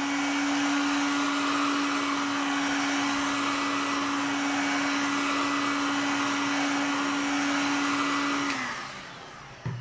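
Electric hot-air blower running steadily with a constant motor hum and air rush, heating the phone's back glass so the adhesive tape softens and the cover seals. Near the end it switches off and winds down with a falling pitch.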